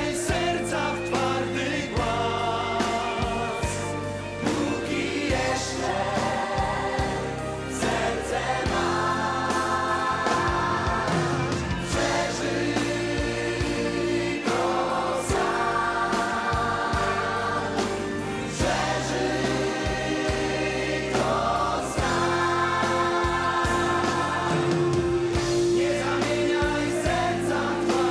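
A choir singing long held notes over a band with a steady drum beat.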